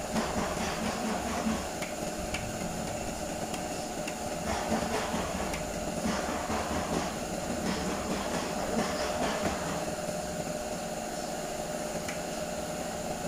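Light scraping and clicking of a plastic spreader working body filler on a mixing board and onto a car fender, heard over a steady mechanical hum from the workshop. The scraping comes mostly in the middle of the stretch.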